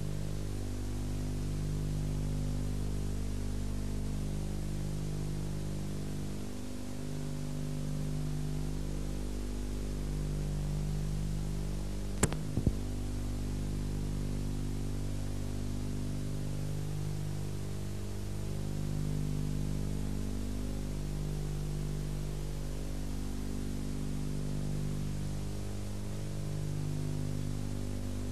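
Steady electrical mains hum with hiss on an old videotape soundtrack, its low tone pulsing every couple of seconds, with one short sharp crackle about twelve seconds in.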